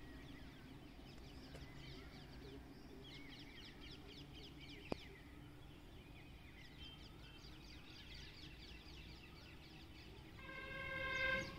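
Many small birds chirping together over a low steady rumble, with a single sharp click about five seconds in. Near the end a loud steady-pitched hoot swells for about a second.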